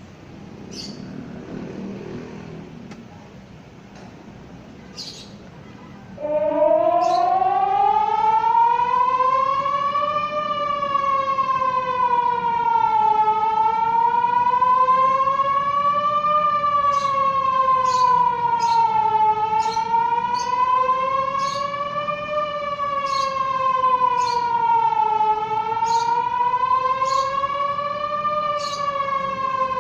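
City emergency public warning siren sounding in a test: it comes on suddenly about six seconds in, rising in pitch, then wails slowly up and down, each rise and fall taking about six seconds.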